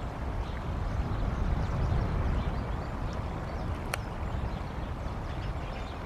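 Wind rumbling on the microphone outdoors, gusting harder about a second in, with faint high ticks and one sharp click about four seconds in.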